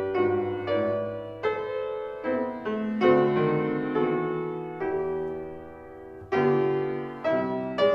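Slow, gentle solo piano music: single notes and chords struck a second or so apart and left to ring out.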